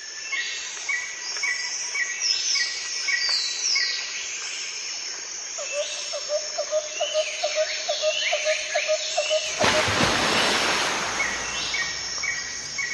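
Birds chirping and calling: repeated short chirps and quick falling whistles, with a run of rapid short low notes in the middle. A rushing noise of about a second cuts in about three-quarters of the way through, then the birds carry on.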